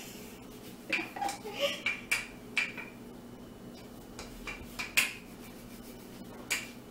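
Wooden rolling pin working dough on a wooden board, with an irregular run of sharp wooden knocks and clacks as the pin and board bump; the loudest knock comes about five seconds in.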